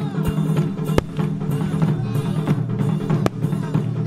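Music with a steady, even drum beat over sustained low tones, with two sharper hits about a second in and just after three seconds.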